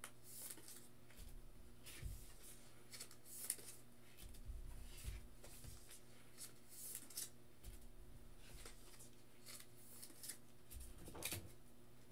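Faint rustling and light clicks of trading cards being handled and gathered up, in scattered short bursts, over a steady low hum.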